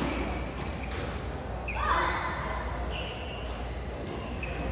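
Badminton rally: sharp racket-on-shuttlecock hits about a second apart, echoing in a large hall, with short squeaks of shoes on the court mat.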